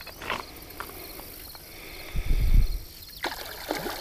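Crickets chirring steadily in a pulsing summer chorus. Over them come a few light clicks and a low dull thump a little over two seconds in.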